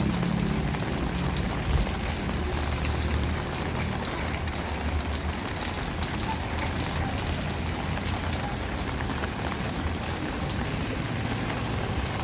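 Heavy rain falling steadily, with many fine drop hits. A low hum fades out over the first few seconds.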